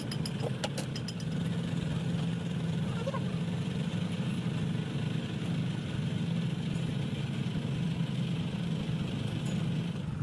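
An engine idling steadily, with a few light clicks in the first second.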